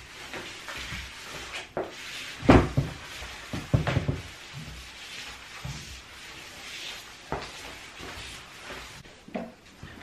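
Broom bristles scraping across ceramic floor tiles during sweeping, with several knocks and bumps, the loudest about two and a half seconds in and a cluster around four seconds.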